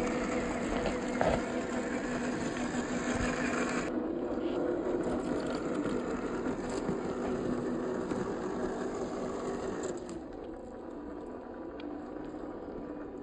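Electric motor and gear drive of a 1/12-scale MN86K G500 RC car running, a steady mechanical whine over a low hum. It gets a little quieter about ten seconds in.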